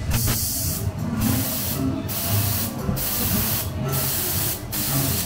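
Compressed air hissing in about six short bursts, roughly one a second, over a low rumble. It is typical of a ghost train's air-blast effect.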